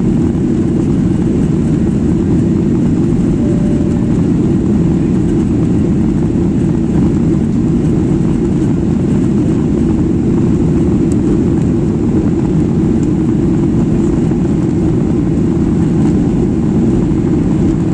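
Steady airliner cabin noise: the jet engines and rushing air heard from inside the passenger cabin, a dense low rumble that holds even throughout.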